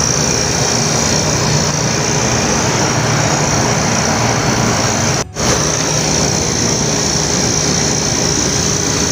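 Refrigeration vacuum pump running steadily while it evacuates the air from an air-conditioning system's refrigerant lines before charging. The sound cuts out for a split second about five seconds in.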